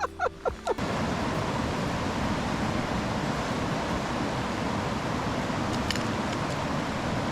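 Quick plucked music notes cut off under a second in, giving way to the steady, even rush of flowing river water.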